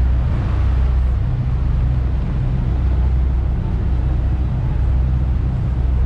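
Steady low drone of a river cruise boat's engine, over an even rushing noise of water and wind.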